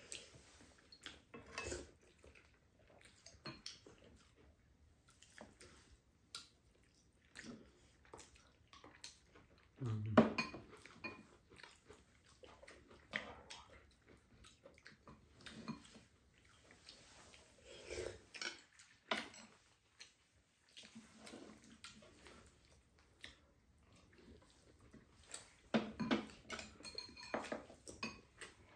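Chopsticks and spoons clinking and scraping against ceramic bowls and a frying pan during a meal, in scattered short clicks and knocks.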